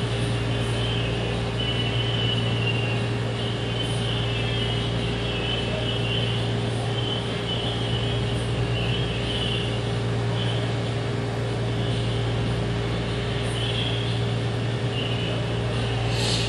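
Steady low mechanical hum of room noise, with faint high chirps coming and going over it and a single short click near the end.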